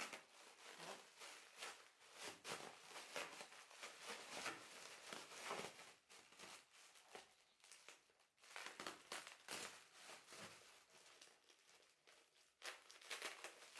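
Packaging crinkling and rustling as it is handled, a faint, irregular run of crackles with a couple of short pauses.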